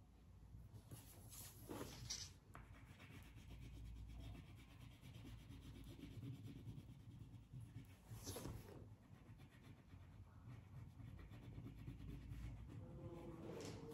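Crayon rubbing back and forth across paper while colouring in: a faint, scratchy scrubbing with a few brief louder strokes, one about eight seconds in.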